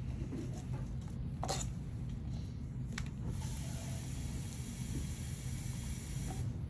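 Quiet room tone: a steady low hum, with two faint clicks in the first half and a soft high hiss for about three seconds in the second half.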